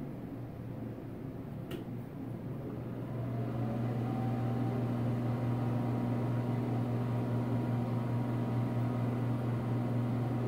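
Penn Zephyr ceiling exhaust fan running with a steady hum, in good condition. A single click comes about two seconds in, and the hum grows louder about three seconds in, then holds steady.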